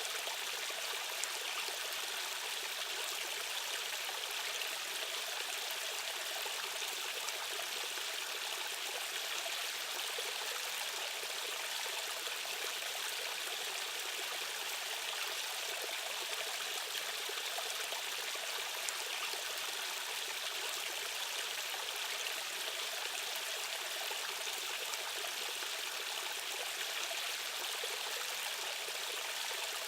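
Flowing stream or small waterfall: a steady rush of water with a light trickling, unchanging throughout.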